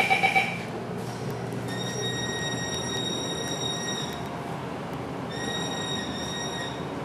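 MAN NL323F A22 city bus running, with an unusual loud high-pitched whine that comes in twice: for about two and a half seconds, then for about a second and a half. The whine holds a steady pitch. A loud pulsing beep ends about half a second in.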